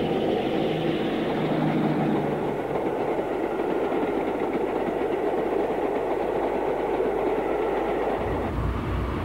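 Diesel locomotive engine running steadily with the rumble of a moving train; a deeper rumble comes in near the end.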